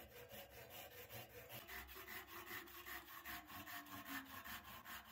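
Handsaw cutting through a 1.5 inch round wooden dowel held in a vise. The strokes are faint, quick and evenly spaced.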